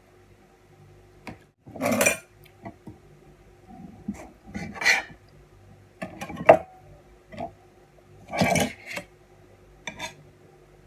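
Cutlery clinking and scraping against a plate as a knife cuts salami slices, in scattered short strokes; the loudest come about two, six and a half, and eight and a half seconds in.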